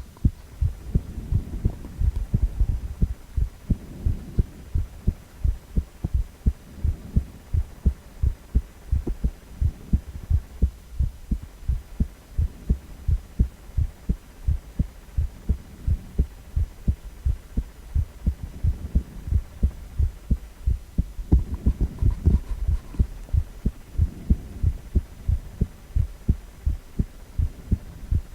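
Heartbeat of an adult man's heart picked up with a cardiac ultrasound: a steady run of low beats, about two pulses a second.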